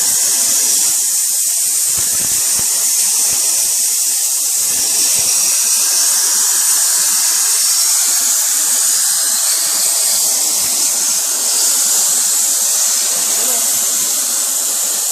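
A plasma torch on a CNC cutting table cuts without a break, making a steady, loud, high-pitched hiss.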